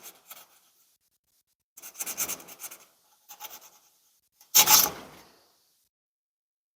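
Abrasive being rubbed by hand across the top of a small-block Chevy flat-top piston, in three short bursts of quick back-and-forth scrubbing strokes. He is scuffing the piston crown lightly to bring up its stamped .030 oversize number.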